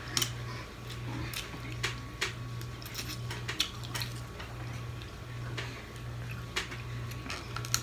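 Irregular small clicks and cracks of a steamed blue crab claw's shell being picked apart by hand, over a steady low hum.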